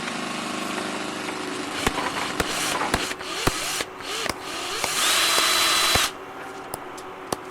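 A power tool running with a steady hum, then a series of sharp knocks, and a loud hissing burst with a high whine about five seconds in.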